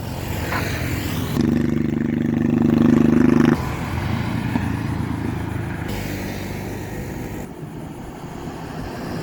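A motor vehicle passing close by: a steady engine hum over road noise, loudest for about two seconds before dropping off sharply, then traffic noise continuing more faintly.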